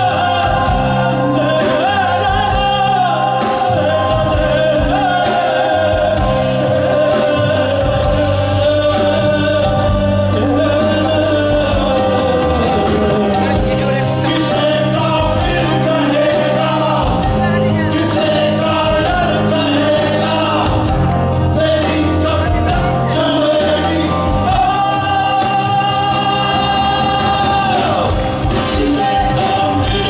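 Indian fusion rock band playing live, with long, wavering sung vocal notes over drum kit, bass, guitars and tabla.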